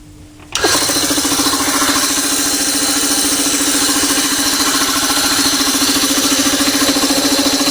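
An old home-made air compressor switched on: its capacitor-start electric motor starts abruptly about half a second in, and the compressor pump runs with a loud, steady, fast pulsing as it pumps up a small tank.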